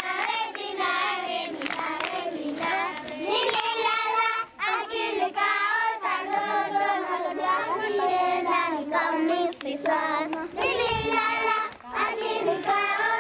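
A group of children singing together in unison, an action song, with a bright, lively melody.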